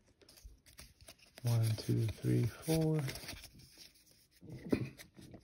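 Faint rustling and light clicks of a small stack of Pokémon trading cards being slid between the fingers, with a voice counting to four in the middle.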